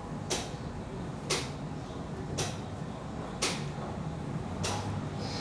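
Slow, evenly paced footsteps on a stairway, one about every second, each a short scuffing stroke.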